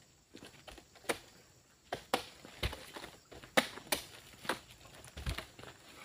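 Oil palm fruit bunches being handled during loading: a series of irregular knocks and thuds, about eight in six seconds, some of them deep and heavy.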